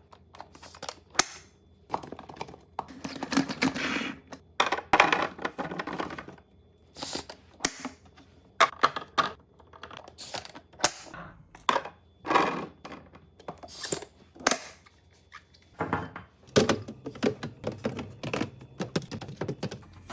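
Containers and bottles being handled and set down while restocking a fridge: irregular clicks, clacks and knocks, with some longer stretches of rustling and scraping.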